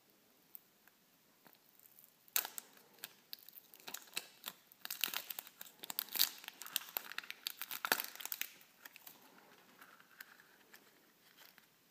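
Printed plastic wrapper being torn and peeled off a plastic surprise egg: a run of crinkling and crackling that starts about two seconds in, is loudest in the middle, and thins out after about nine seconds.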